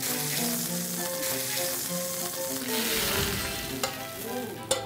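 Beef short ribs sizzling in hot oil in a frying pan, a steady crackling hiss, with a couple of sharp clicks near the end.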